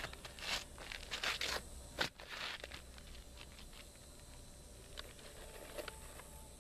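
Gritty scraping and rustling of asphalt ridge cap shingles being slid and pressed into place by hand, in short strokes that fade after the first couple of seconds, with one sharp knock about two seconds in.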